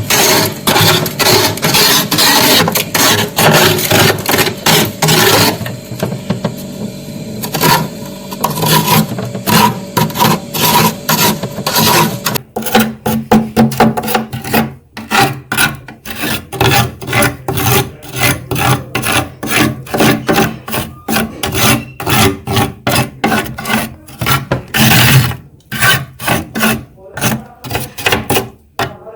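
Frost being scraped from the inside of a freezer: rapid, rough scraping strokes, then a sudden change about twelve seconds in to a run of separate short strokes.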